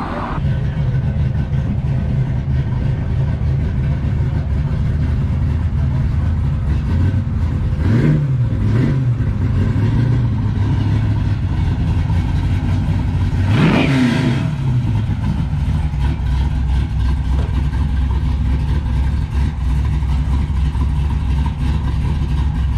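A car engine idling steadily with a deep, even rumble, revved up and back down twice in quick succession about eight seconds in and once more, higher, about fourteen seconds in.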